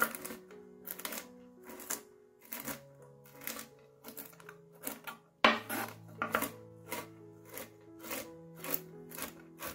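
Kitchen knife chopping walnuts on a wooden cutting board, sharp chops about twice a second, the loudest about halfway through, over steady background music.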